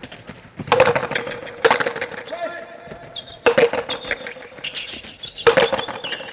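A paleta rally: the ball cracks off wooden paddles and the court's concrete walls in four sharp hits about one to two seconds apart, each ringing with a short echo off the walls.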